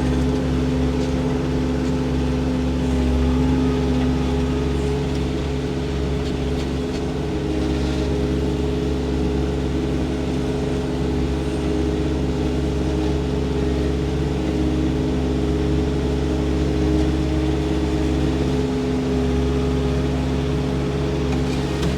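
Engine running steadily at a constant pitch, with no change in speed.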